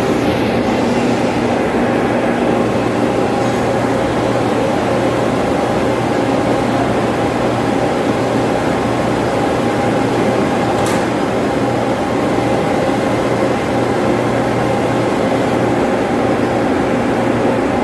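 Steady drone of a large building ventilation fan blower running: a constant hum with a few steady tones over rushing air, with one faint tick about eleven seconds in.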